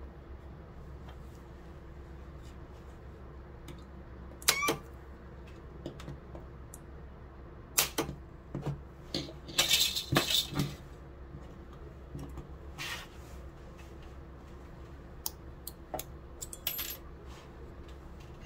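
Homemade capacitor-discharge spot welder pulsing against snapped-off utility-knife blade pieces: scattered sharp clicks and snaps from the relay and the weld contact, with the loudest cluster about ten seconds in, and small metal pieces clinking on a wooden bench. The welds barely hold, which the maker puts down to the blade being thick.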